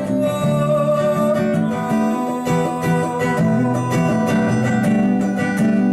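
Live band music in a gap between sung lines: a strummed acoustic guitar with other instruments holding notes underneath, playing steadily.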